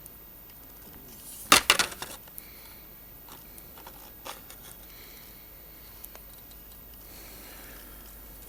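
Plastic model kit parts being handled: a quick burst of clicking and rustling about one and a half seconds in, then a few light clicks.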